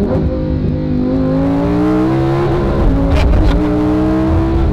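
Lamborghini Huracán EVO's 5.2-litre naturally aspirated V10 at full throttle, heard from inside the cabin: the revs climb steadily, drop sharply at an upshift about two and a half seconds in, then climb again to another upshift at the end.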